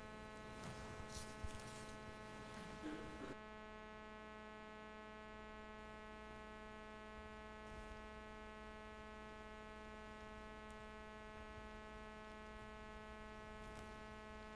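Steady low electrical mains hum with a buzzy stack of overtones in the audio feed. A few faint rustles come in the first three seconds.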